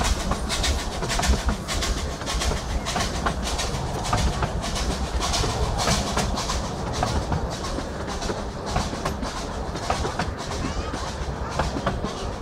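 Miniature-railway passenger carriages rolling past on a curve, their wheels clicking over the rail joints over a low rumble.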